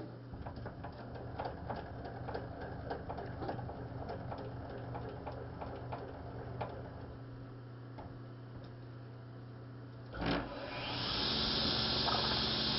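Small wooden pieces clicking and tapping on a table saw's table over a steady hum. About ten seconds in comes a thump, then the table saw's motor starts and runs with a steady whir.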